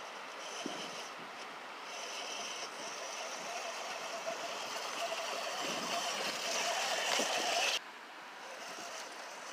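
Electric motor and gears of a 1:6 scale RC crawler truck whining under throttle as it climbs a sandy slope, growing louder, then cutting off suddenly about eight seconds in. Wind hisses on the microphone.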